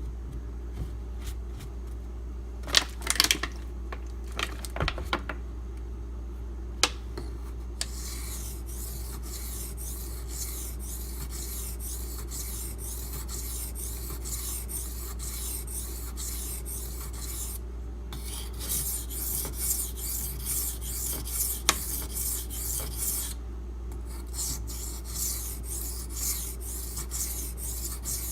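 Knife blade being stroked back and forth on a 400-grit Imanishi Latte water stone, a regular scratchy rasp of about two to three strokes a second with two brief pauses, after a few sharp knocks in the first several seconds. A steady low hum runs underneath.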